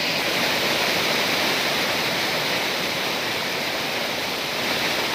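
Waterfall swollen by heavy rain, pouring over rock ledges: a steady, even rush of falling water.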